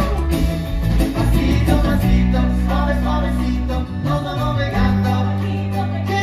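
Stage band playing Latin-flavoured dance music, with guitars and a bass line holding long notes.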